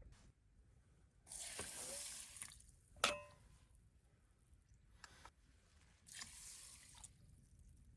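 Two short hissing, rushing noises, one early and one near the end, with a sharp clink that rings briefly between them.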